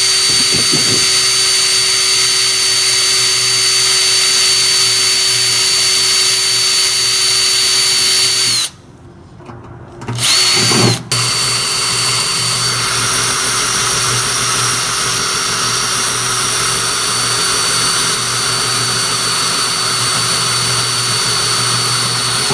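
Power drill running at steady speed as it bores through a sheet-metal panel, first with a twist bit for a pilot hole and then with a hole saw. The drill stops about nine seconds in, spins briefly, and starts again about two seconds later.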